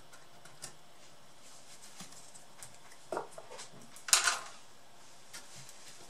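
Handling noise from a laptop motherboard and its metal power jack being worked by hand: scattered light clicks, a knock about three seconds in and a short scrape just after four seconds, the loudest sound.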